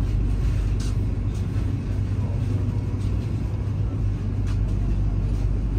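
Steady low rumble inside a Vande Bharat Express electric chair car as the train rolls out of the station, under a constant low hum, with a couple of faint clicks.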